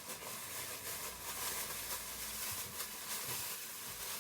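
Steady rustling hiss with small irregular crinkles: plastic packaging being handled while toy pieces are unpacked.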